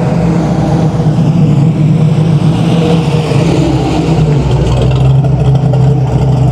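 Car engine running with a steady, loud low rumble, with a hiss that swells and fades around the middle.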